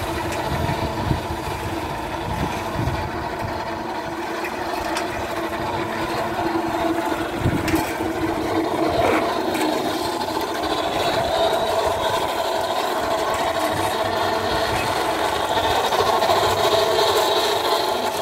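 Minerva 230 handy concrete mixer running: a steady motor and gear hum from the drum drive, a little louder in the second half.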